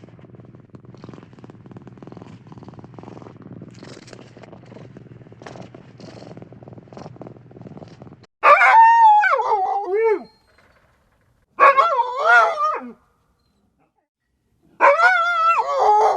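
A domestic cat purring steadily. Then three separate drawn-out dog howls with a wavering pitch, separated by short silences.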